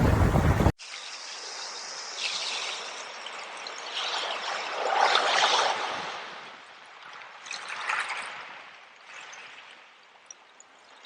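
A small stream trickling and splashing, swelling louder a few times, loudest around the middle, then fading lower near the end. It opens with loud wind and surf that cuts off abruptly less than a second in.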